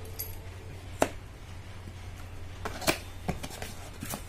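Cardboard product box handled by hand and slid open from its sleeve: a few sharp taps and clicks of fingers on cardboard, the loudest about a second in and near three seconds in, with smaller ones near the end.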